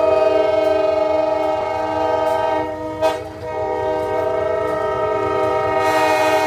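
Steam locomotive's chime whistle blowing a long, steady multi-note chord, broken briefly about three seconds in and then sounding again. A rushing hiss rises near the end.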